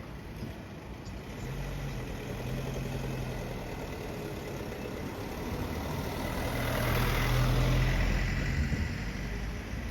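Motor vehicle engine running as it passes, a low hum that grows louder to a peak about seven to eight seconds in, then fades.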